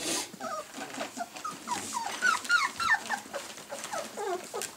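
Young Bernese Mountain Dog puppies whimpering and yipping: a quick string of short, high, squeaky cries that fall in pitch, several a second and loudest in the middle. A brief rustling noise comes right at the start.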